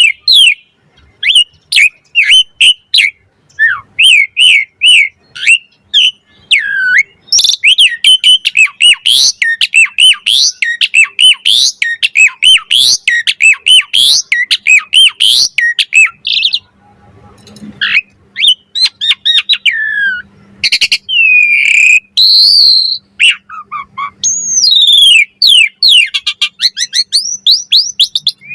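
Asian pied starling (jalak suren) singing its varied pumping song: long, rapid runs of loud whistled and chattering notes that rise and fall in pitch. There is a brief lull about two-thirds of the way through, and a fast run of notes near the end.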